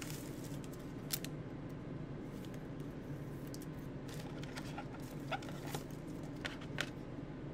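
Scattered light plastic clicks and crinkles as a trading card is handled and slid into a clear plastic card sleeve, over a steady low hum.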